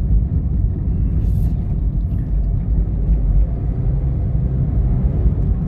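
Mitsubishi Mirage heard from inside the cabin while driving slowly: a steady low rumble of engine and tyres on the road.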